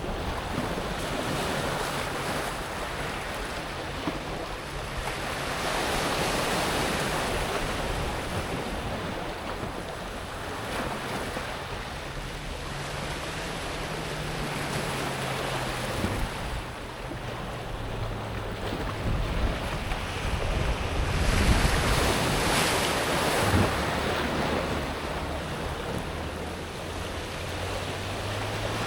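Small sea waves breaking and washing up and back over a pebble beach, the surf swelling and easing every few seconds. A faint low hum joins in about a third of the way through.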